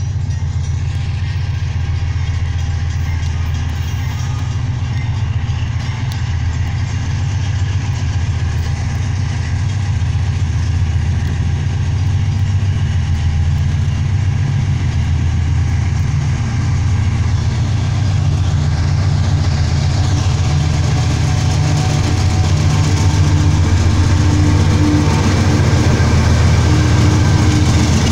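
GE AC44i diesel-electric locomotive approaching with its engine running, a steady low rumble that grows louder as it nears, with a steady hum coming in over it in the last few seconds as it draws alongside.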